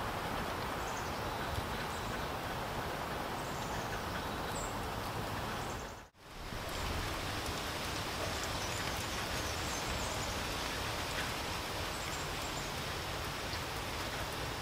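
Steady rain falling, an even hiss, with a few faint high bird chirps now and then. The sound fades briefly to silence about six seconds in and comes back.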